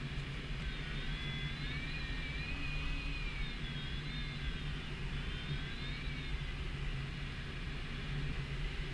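Steady airflow rushing and rumbling over the canopy of an ASK 13 glider in gliding flight. From about a second in until around six seconds, a thin whistle-like tone wavers gently up and down in pitch above the rush.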